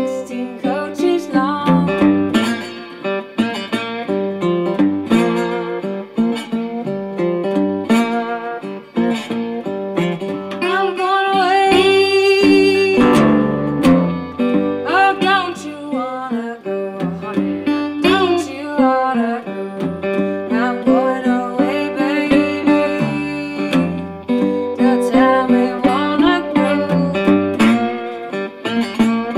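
A resonator guitar playing an acoustic blues tune, plucked notes throughout with held, wavering melody notes in places.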